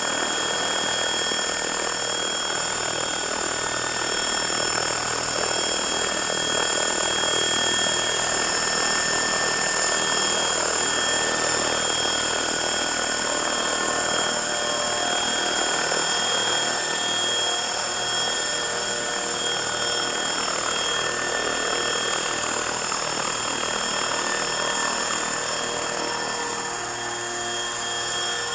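Frenzy 600E electric RC helicopter on a 5S battery, hovering: a steady high-pitched motor whine over the rotor noise.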